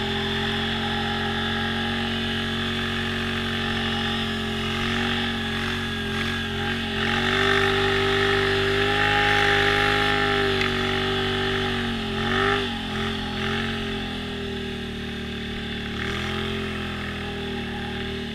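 ATV engine running, its pitch rising as it is revved about seven seconds in, then dropping back and wavering around twelve seconds before running steadily again.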